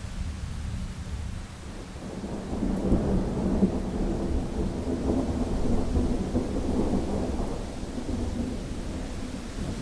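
Thunder rolling over steady rain: a low rumble builds about two seconds in, stays loud for several seconds, then slowly dies away.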